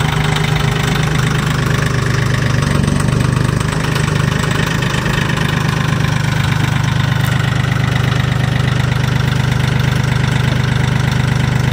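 Mahindra compact tractor's diesel engine running steadily at idle.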